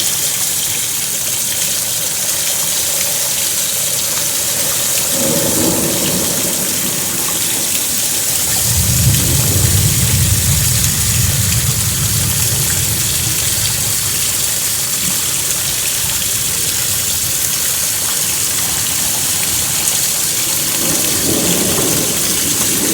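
Steady rain hissing, with rolling thunder: a rumble about five seconds in, a louder, deeper one from about nine to fourteen seconds, and another near the end.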